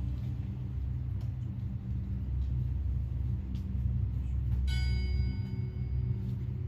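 Theatre background music: a steady low drone, with a single bell-like chime struck about two-thirds of the way through and left to ring out.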